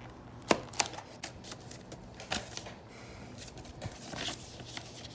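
Gift packaging being handled by hand: a few sharp clicks and snaps, the loudest about half a second in, with scattered crinkling and rustling of paper or plastic.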